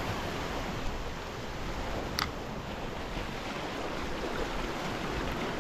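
Sea surf washing against a rock ledge below, a steady wash of water noise, with one brief sharp click about two seconds in.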